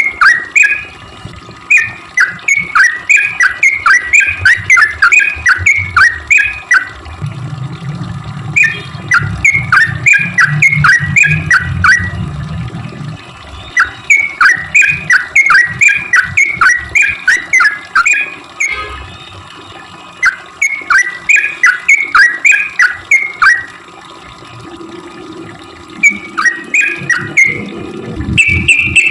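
Yellow-vented bulbul (trucukan) giving its fast chattering 'cuk cuk' call: bursts of many short, quick, falling notes, repeated with short pauses between bursts. A low hum runs under the calls through the middle.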